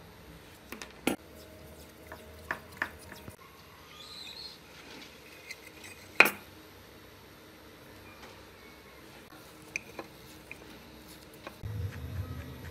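Scattered small clicks and clinks of hand tools, wires and plastic parts being handled while an electric fan motor is wired up. The sharpest click comes about six seconds in.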